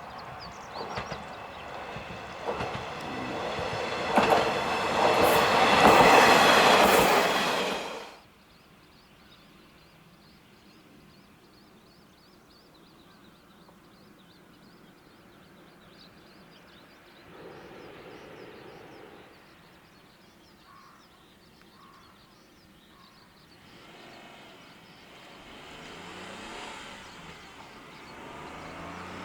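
Hojo Railway diesel railcar passing close, its wheels clattering and squealing on the rails, getting louder until it cuts off abruptly about eight seconds in. Then quiet outdoor ambience follows, and a faint sound builds near the end.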